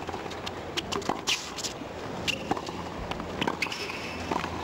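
Tennis rally on a hard court: racquets striking the ball about once a second, with sneakers squeaking and scuffing on the court surface between shots, over a low crowd murmur.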